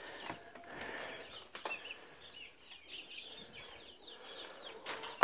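Young chicks peeping, with many short, high, falling chirps overlapping. A few knocks as the pen is climbed into, the loudest right at the end.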